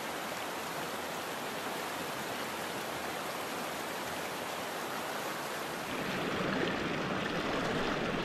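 Small rocky trout stream running over stones: a steady rush of flowing water that grows louder about six seconds in.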